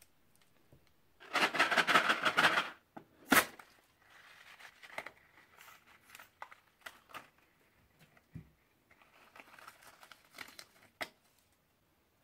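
Crunchy bead-filled slime being handled, crinkling and crackling. A dense burst comes about a second in, then a sharp click, then softer crackling on and off, with another sharp click near the end.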